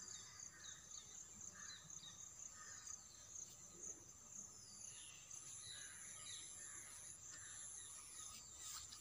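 Faint outdoor ambience: a steady high-pitched insect drone with scattered short bird chirps.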